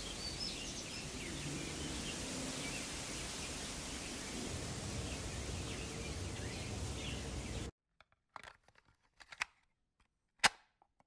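Outdoor ambience: a steady hiss of background noise with faint bird chirps. It cuts off abruptly near the end, leaving near silence with a few short clicks.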